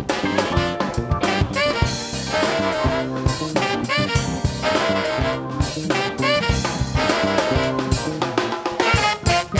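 Live funk band playing: a horn section with saxophone carries the tune over a drum kit, bass and piano.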